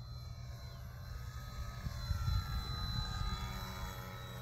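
Electric outrunner motor and propeller of a 1/10-scale RC Hawker Hurricane whining as the model flies past, the whine dipping in pitch and rising again about halfway through. A low rumble of wind on the microphone runs underneath and is loudest as the plane goes by.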